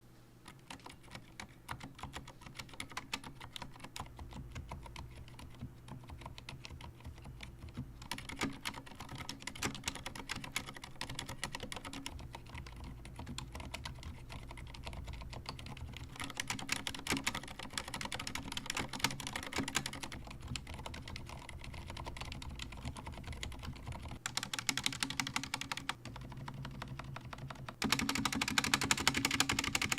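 Typing on a Corsair K70 RGB Pro mechanical keyboard fitted with Cherry MX Silent Red switches. The switches, springs and stabilisers are fully lubed. Rapid runs of keystrokes with short pauses between them; near the end the typing gets denser and louder.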